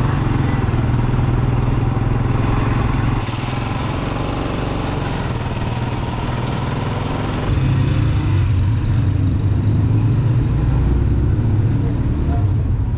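Small commuter motorcycle's engine running while being ridden. The engine note drops about three seconds in and picks up again a little past the halfway point.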